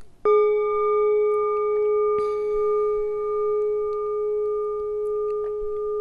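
A singing bowl struck once, ringing on with a strong low tone and several higher overtones that waver slowly. There is a brief rustling hiss about two seconds in.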